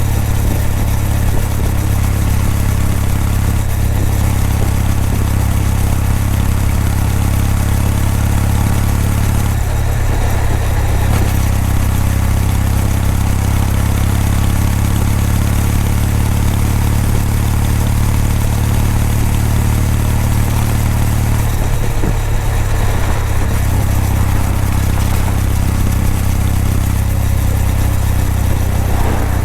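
Kawasaki W800 air-cooled parallel-twin motorcycle engine and exhaust running steadily while riding, with a brief change in the engine note about ten seconds in and again about twenty-two seconds in.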